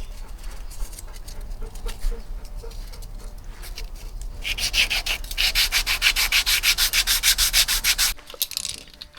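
Hand sanding on a car body panel: abrasive paper rubbed rapidly back and forth, lighter at first, then much louder and faster strokes from about halfway in that stop suddenly near the end.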